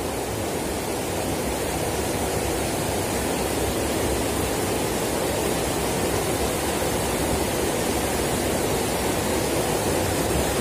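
Shallow rocky stream running: a steady rush of water over stones.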